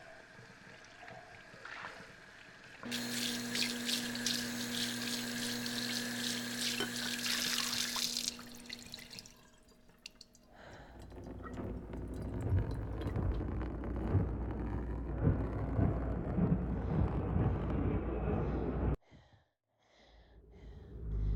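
Kitchen tap running into a sink for about five seconds, with a steady hum underneath, then shut off. Later a low, uneven noise builds and cuts off suddenly near the end.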